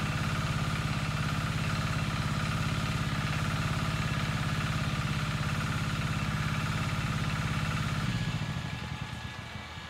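A small engine running steadily, then shut off a little after eight seconds in, its note sinking as it slows to a stop.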